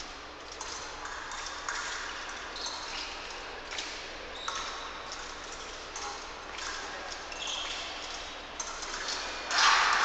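Echoing fencing-hall ambience: scattered metallic pings and clinks of blades from bouts on other pistes, over a background of distant voices. A louder burst of noise comes near the end.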